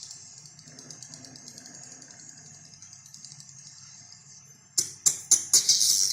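High-pitched bird calls from a lure-call recording: a rapid chittering trill that fades slightly, then from about five seconds in loud sharp chirps in quick succession.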